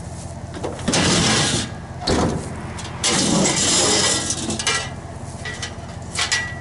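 Aluminum loading ramp being slid out of a pickup truck bed, metal scraping along the bed. There are two longer scrapes and a few short knocks and rattles.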